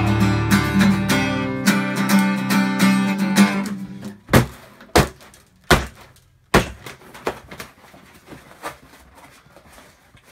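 Acoustic guitar strummed in chords for about three and a half seconds, then ringing out. Then four loud thumps and a few lighter knocks as the guitar and a cardboard box are handled.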